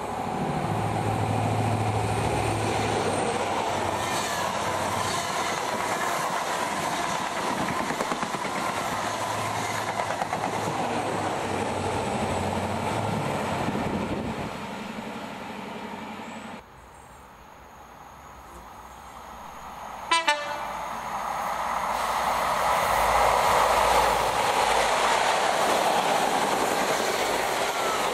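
Diesel trains passing on the line, engine and wheel noise running loud for the first half. The sound drops off suddenly, a short sharp click follows, and then another train builds up loud again toward the end.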